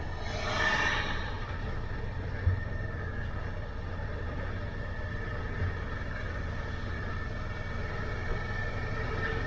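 Motorcycle engine running steadily at low speed, heard from the rider's seat under a low rumble of road and wind. An oncoming lorry passes close about half a second in, a brief swell of noise.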